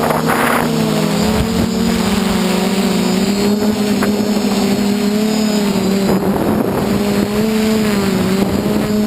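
DJI F450 quadcopter's four motors and 8-inch propellers in flight, a loud, steady buzzing hum close to the onboard camera. The pitch wavers slightly up and down as the throttle is adjusted.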